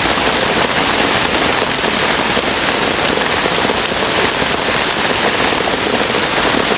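Heavy rain pouring down: a loud, steady, dense hiss of countless drops.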